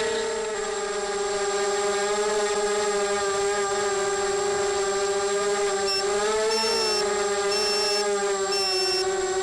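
ZMR250 mini quadcopter's brushless motors and propellers buzzing at a steady speed, the pitch wavering briefly about two-thirds of the way through. From about six seconds in, short high beeps repeat roughly once a second alongside it.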